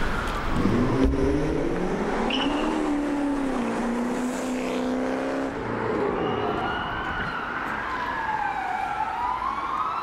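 A Mercedes W124 saloon's engine revving as it accelerates, its pitch climbing and then holding. About six seconds in, its tyres squeal as the car slides through a turn, a wavering tone that swings up and down.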